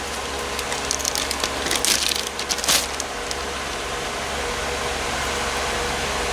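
A quick run of light clicks and rattles from parts being handled in the first three seconds, then a steady background hum.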